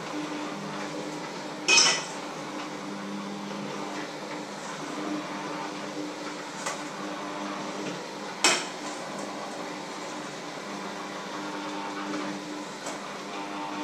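Two sharp clinks against a bowl, about seven seconds apart, the first with a short ring, plus a few faint taps between, over a steady low hum.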